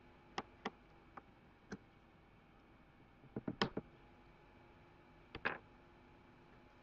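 Scattered short, sharp clicks and taps of small tools and plastic parts as a Samsung Galaxy 5 (GT-I5500) phone is taken apart, with a quick run of clicks about halfway through and another pair a little later.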